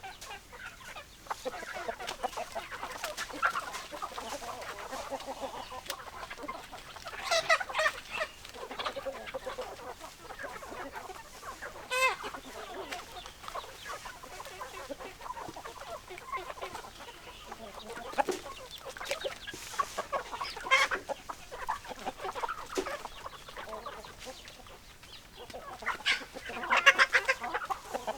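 A flock of chickens clucking continuously, with several louder calls standing out above the clucking.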